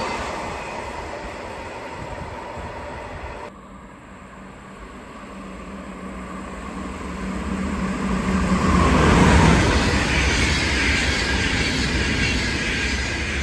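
A train running past, fading, then, after an abrupt cut, another train approaching with a steady low hum, loudest about nine seconds in as it passes, and then moving away.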